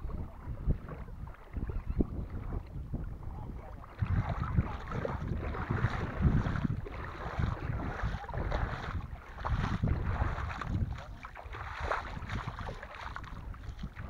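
Wind buffeting the microphone in uneven low gusts, louder from about four seconds in.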